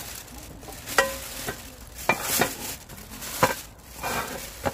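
Metal pots and pans knocking and scraping against each other as they are picked up and sorted: about six sharp clanks over a rustling, scraping bed, the clank about a second in ringing briefly.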